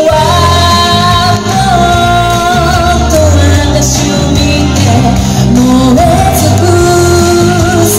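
A woman singing a pop song live over amplified backing music, holding long notes above a steady bass line.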